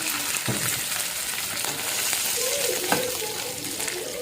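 Mustard seeds, cumin and curry leaves spluttering and sizzling in hot oil in a kadai as a tempering. There are two sharp knocks, about half a second in and near three seconds.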